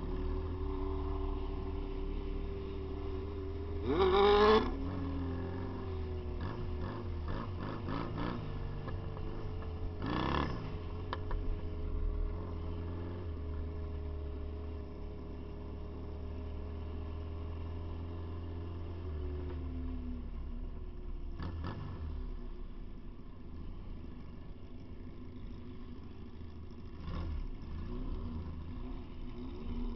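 Motorcycle engine running at low speed with a steady rumble, rising briefly in two short revs about 4 and 10 seconds in.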